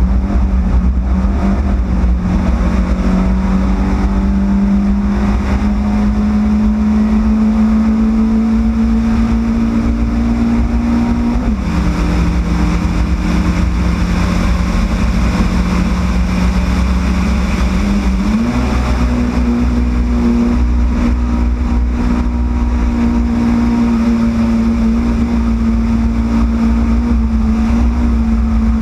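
Yugo race car's four-cylinder engine running hard at high, steady revs, its pitch climbing slowly. The pitch drops suddenly about a third of the way through, rises again quickly about two-thirds in, and then holds steady.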